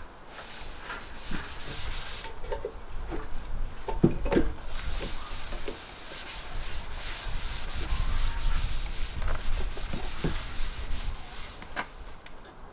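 Scouring pad scrubbing over the bare aluminium fuel tank of a BMW K100, a scratchy rubbing that comes in strokes. A few dull knocks sound as the tank shifts on the wooden bench.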